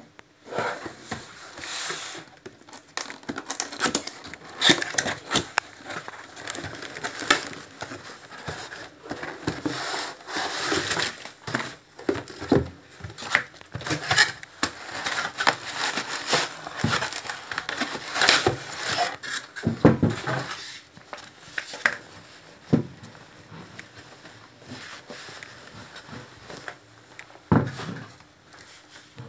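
Packaging being handled during an unboxing: a cardboard box is opened and a camera housing is lifted out of its soft white wrapping, giving irregular rustling and crinkling with scattered clicks and taps. Two dull thumps, about two-thirds of the way through and near the end, are louder than the rest.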